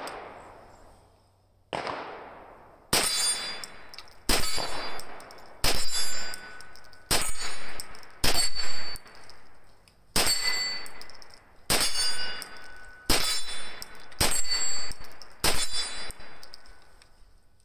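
A Ruger PC Carbine 9mm is fired semi-automatically: about a dozen single shots, roughly one every second to second and a half. Each shot is followed by the ringing clang of a steel target being hit.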